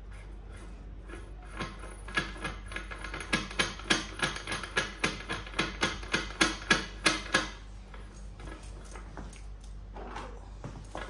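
Metal nut and washers clicking against the threaded copper stud and steel parts of a transformer LV bushing as they are turned by hand: a rapid run of sharp metallic clicks, about four a second, starting about two seconds in and stopping after about five seconds.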